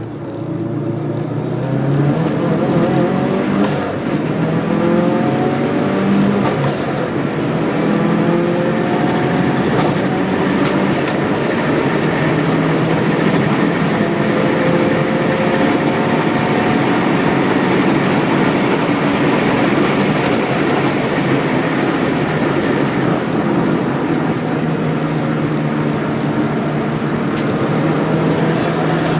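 Subaru WRX race car's turbocharged flat-four engine running hard, its revs climbing again and again under load.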